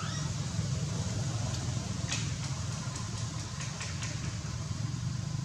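A steady low hum, like a running engine, throughout. A brief rising squeak comes right at the start, and a few faint clicks about two to four seconds in.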